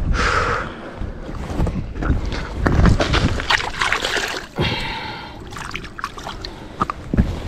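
Wind buffeting the microphone in an uneven low rumble, with scattered short clicks and knocks.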